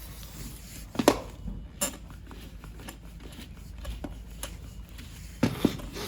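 A few sharp clicks and knocks from parts of a copier imaging unit being handled, the loudest about a second in and a close pair near the end, over a steady low hum.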